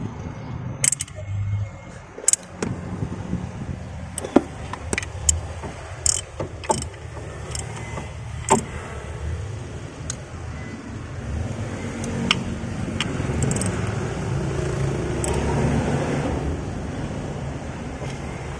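Scattered metal clicks and taps of a socket wrench being fitted and worked on the timing-belt tensioner bolt of a Mitsubishi 4D56 diesel engine, with the belt being re-tightened. Underneath is a steady low hum that grows louder in the second half.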